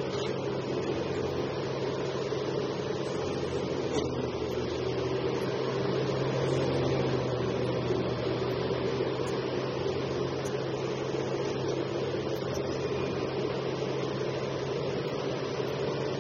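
Liebherr R 984C hydraulic excavator's diesel engine running under digging load, a steady low drone that swells slightly midway.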